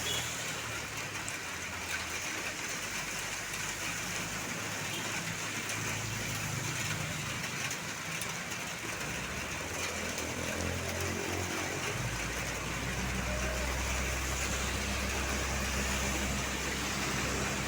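Bus engine running steadily over road noise. About twelve seconds in, a deeper, louder engine hum comes in and holds.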